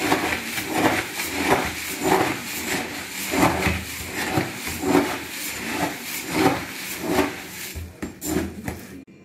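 Steel spoon stirring dry puffed rice in a large plastic tub, a rhythmic crunching scrape about twice a second that stops near the end.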